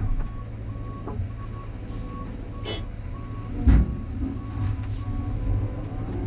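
Backup alarm on a reversing heavy machine, beeping steadily under two times a second, stops about five seconds in; over it a heavy diesel engine runs, with a few sharp knocks and one loud thump about halfway.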